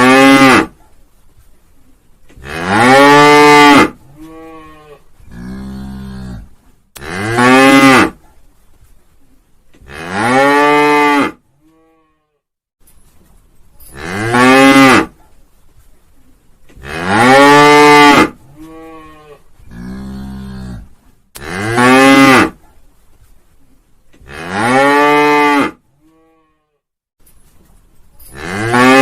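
A cow mooing over and over, about nine loud moos, each rising and then falling in pitch, with a few quieter, lower moos in between.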